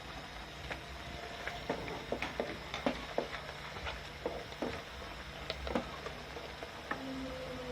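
Chicken with tomato paste and spices frying in a pot, crackling with irregular small pops, over a steady low hum.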